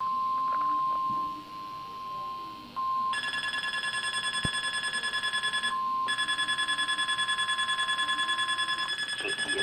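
Weather radio alert for a required monthly test: a steady warning tone near 1 kHz (the 1050 Hz weather radio alarm tone), joined about three seconds in by a rapid electronic alarm beeping that pauses briefly midway. The tone stops near the end while the beeping keeps going.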